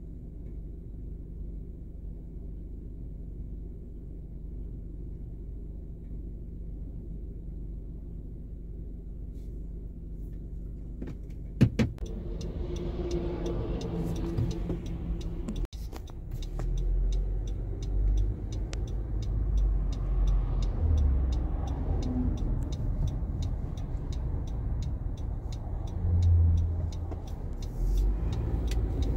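Diesel engine of a Mack garbage truck running steadily, a low rumble with a steady hum. About twelve seconds in, after a couple of sharp clicks, louder driving noise takes over: engine and road rumble heard from inside a moving car, rising and falling.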